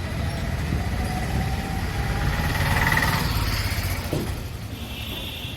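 Street traffic rumbling, with a motor vehicle's engine running close by; a short higher tone sounds near the end.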